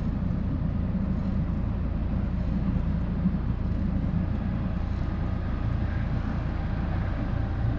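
Steady low rumble of outdoor city background noise: distant traffic and railway sound.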